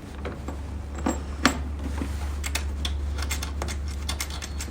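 Small clicks and taps as lipo laser pads are fitted and pressed into place on the machine, the sharpest about one and a half seconds in, over a steady low hum.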